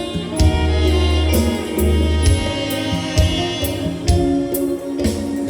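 Music with a steady drum beat and singing.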